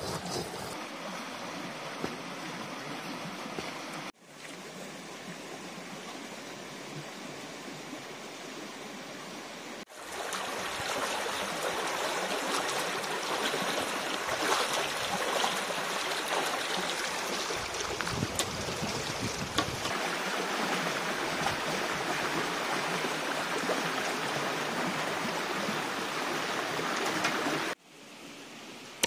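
Shallow stream water rushing and splashing around feet standing in the current, loudest from about ten seconds in and cut off abruptly near the end. It is preceded by a few seconds of a stone roller grinding chillies on a flat grinding stone and a softer steady rush.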